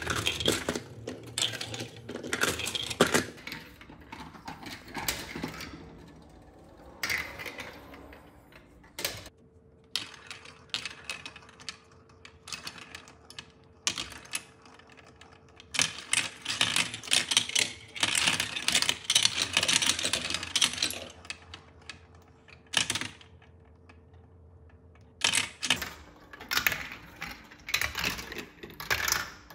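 Plastic balls of a VTech Marble Rush run rolling and clattering through plastic tracks, chutes and a bowl funnel: rapid clicking and rattling in bursts with quieter stretches between, over a faint steady hum through the middle.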